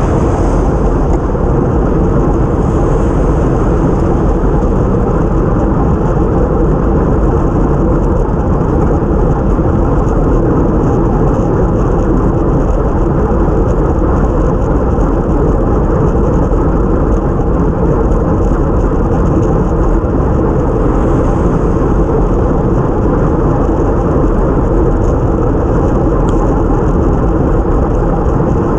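Steady rush of wind on the microphone with tyre and road noise from a time-trial bicycle ridden at speed on a wet road.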